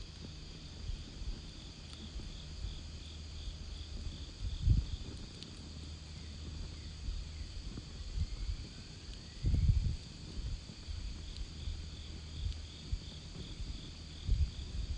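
Insects, cricket-like, chirping in pulsing trains of about three to four chirps a second over a steady high insect drone, beside a campfire. A steady low rumble runs underneath, with a few faint crackles and three louder low thuds.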